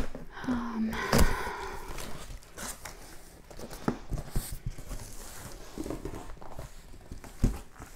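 Handling noise from opening a cardboard shipping box and going through its contents: rustling with scattered knocks and clicks.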